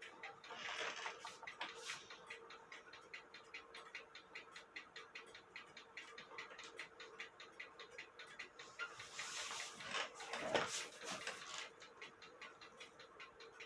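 1880 Fleig hunter's cuckoo clock movement ticking with a quick, even tick, with rustling handling noises about a second in and again around ten seconds in.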